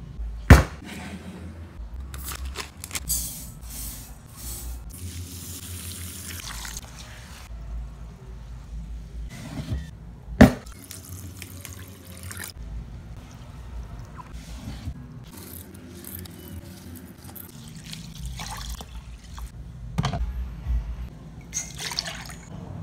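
Kitchen sounds of liquid being poured: water splashing onto black glutinous rice in a glass bowl, and coconut milk pouring from a can into a metal pan near the end. Two sharp knocks stand out, about half a second in and again near the middle.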